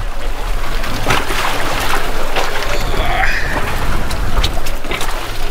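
Steady low hum of an idling boat engine under wind on the microphone, with several sharp knocks as people and gear come aboard a small fishing tender.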